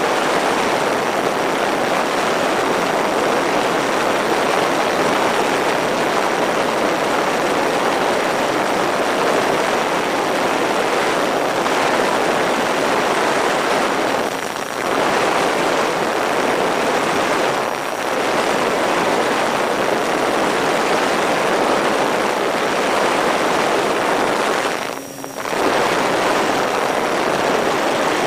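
Twin-propeller electric RC plane in flight, heard from a camera mounted on its fuselage: a loud, steady rush of propeller noise and airflow. The sound dips briefly twice in the middle and once more deeply near the end.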